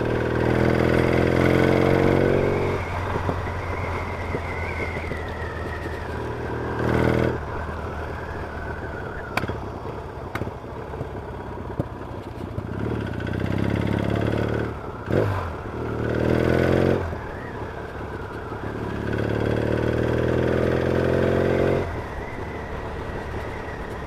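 Yamaha XS650 parallel-twin motorcycle engine accelerating, its pitch rising several times and dropping back as the throttle eases between, heard over wind noise on a helmet-mounted microphone.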